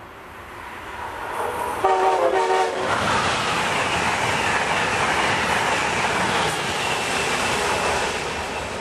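Amtrak Acela Express trains passing at speed through the station, a steady rush of wheels and air that builds up over the first two seconds and holds until it eases near the end. About two seconds in, a train horn sounds a short chord lasting about a second.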